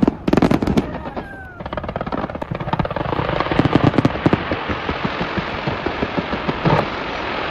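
Fireworks display: a few loud bangs in the first second or so, then a dense, rapid crackling of many small reports from about three seconds in, with another loud bang near the end.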